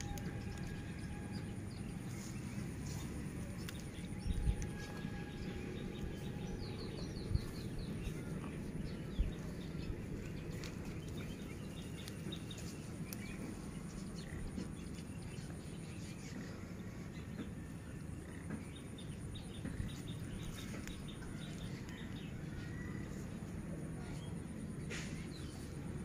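Rural outdoor ambience: a steady low background rumble with scattered bird chirps and calls, a faint steady high insect hum, and a few dull knocks.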